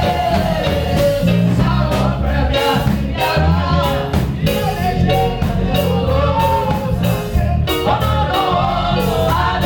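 Singing with band accompaniment: a sung melody over a bass line and a steady drum beat, typical of church praise music.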